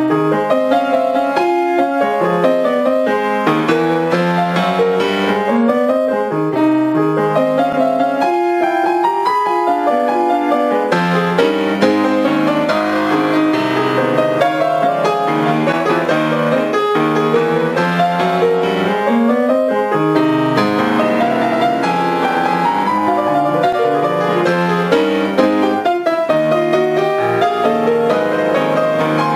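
Grand piano played solo: a ragtime piece, with continuous two-handed notes and chords and a rising run of notes near the end.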